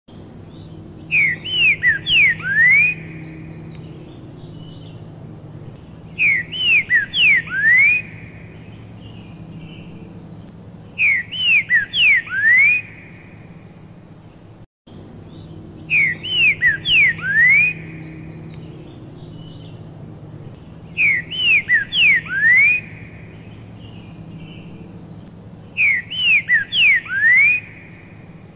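Pixarro (green-winged saltator, Saltator similis) singing its loud whistled song six times, about once every five seconds. Each phrase is a quick run of sliding notes ending in a rising whistle, over a faint steady low hum.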